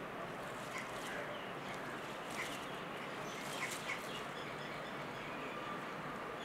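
Steady outdoor background hiss with short bird calls scattered over it, the loudest ones about two and a half and four seconds in.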